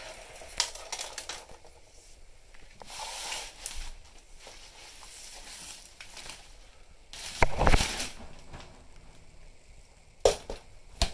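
Handling noise: clear plastic sheeting crinkling and rustling in irregular bursts, loudest about three-quarters of the way through, with sharp clicks and knocks from thin metal rods and an old umbrella's ribs, two of them near the end.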